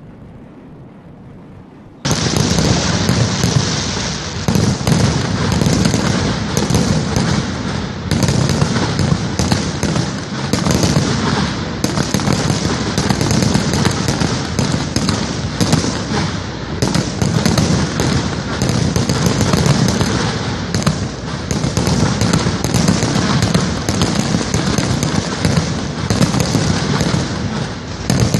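Fireworks going off in a dense, continuous barrage of rapid bangs, pops and crackling that starts abruptly about two seconds in.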